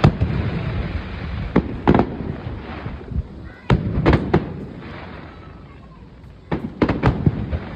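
Aerial fireworks display bursting: sharp bangs in small clusters every couple of seconds, with low rumble and crackle between them.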